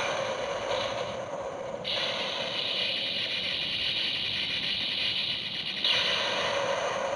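DX Zero-One Driver toy belt with a key inserted, playing an electronic transformation sound effect through its small built-in speaker. It is a steady, buzzy, hissing effect that shifts about two seconds in and again near the end.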